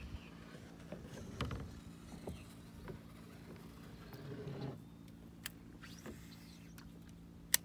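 Faint, steady hum of a distant motorboat engine across a small lake, with a few light knocks and clicks and one sharp click near the end.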